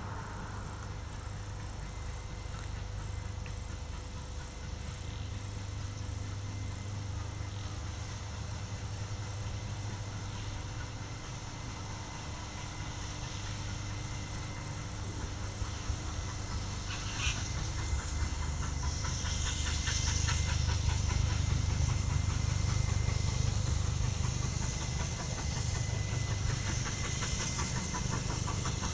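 Distant C30T-class steam locomotive approaching along the line, its low sound growing louder over the second half. Throughout, a high chirp repeats steadily about twice a second.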